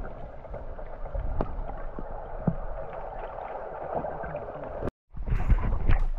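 Steady rush of river water with low rumble from wind on the microphone. The sound cuts out for a moment about five seconds in, then comes back louder.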